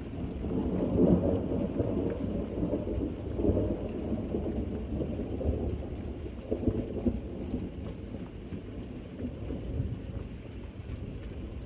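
A rolling thunder rumble over steady rain. It swells just after the start, is loudest about a second in, rolls on in waves for several seconds and dies away about seven seconds in, leaving the rain.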